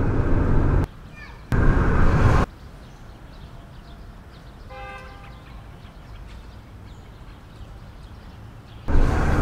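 Car cabin road noise cuts in and out abruptly three times, as short loud bursts of rumble. Between the bursts there is only faint room ambience, with one brief pitched sound about halfway.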